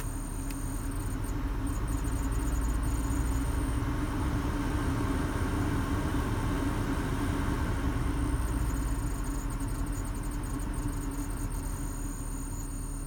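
BMW E39 heater blower fan motor running with a steady whistle, the fault of a failing blower motor that whistles at medium fan speed in the cold. It grows louder about two seconds in and eases off near the end.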